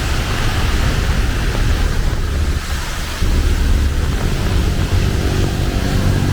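Heavy rain falling with a steady hiss over a low rumble. About three seconds in, the engine hum of a passing vehicle joins it.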